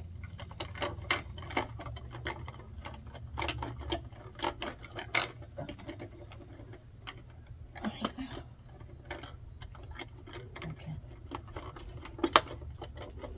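Irregular small clicks, taps and rubbing as hands pull electrical wires out of the plastic wiring compartment of a Magnum inverter, with one sharper click near the end. A low steady hum runs underneath.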